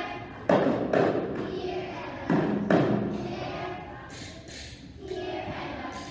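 Non-pitched percussion struck by children: four loud thumps in two pairs, each pair about half a second apart, each thump trailing off briefly.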